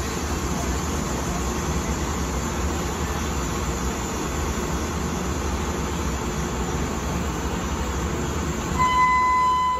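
Daewoo air-conditioned diesel railcar set idling at a station platform: a steady low engine rumble. Near the end, a loud steady high tone sounds for about a second.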